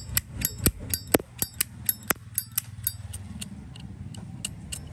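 A 1992 brushed-chrome Zippo lighter clicking: a quick run of sharp metallic clacks with a slight ring, about four a second, thinning out after about three seconds, as the hinged lid and mechanism are worked to show off the lighter's sound.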